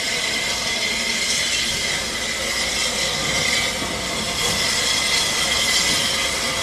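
Southern Railway S15 class steam locomotive No. 847 moving slowly, light engine, with a steady hiss of steam.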